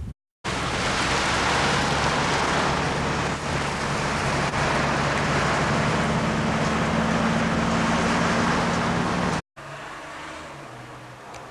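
Steady running noise of a moving vehicle heard from inside, with a low engine hum coming in about halfway through. It cuts off suddenly near the end.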